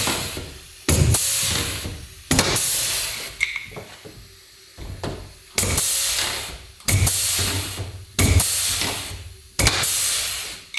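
Pneumatic pop-rivet gun setting rivets one after another, about six times. Each is a sudden burst of air as the gun snaps the rivet's shaft, then a hiss that fades over about a second.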